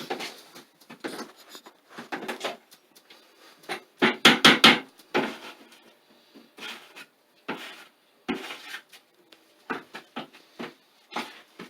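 Acoustic popcorn ceiling texture being stirred in a bucket, thinned a little runnier than oatmeal: irregular scraping and knocking strokes, the loudest cluster about four seconds in.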